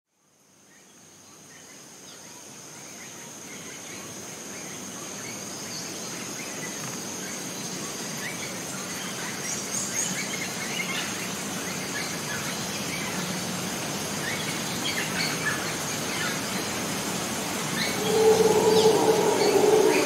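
Rainforest ambience fading in: a steady high insect drone over a soft background hiss, with scattered short bird chirps. Near the end a louder, lower-pitched call sets in.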